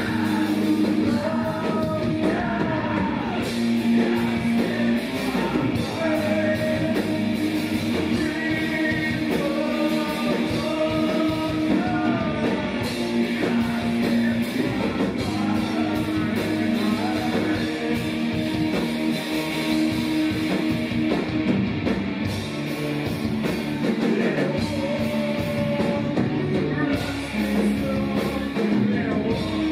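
A rock band playing live, guitars, bass and drums holding sustained chords, with a vocalist singing over them.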